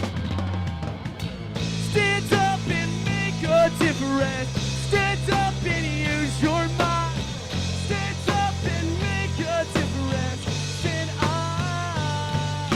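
Rock band playing an instrumental passage: a lead line of sliding, bending notes over sustained bass notes and drums.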